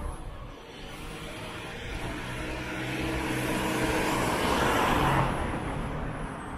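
A road vehicle passing close by: engine and tyre noise swell to a peak about five seconds in, then fade.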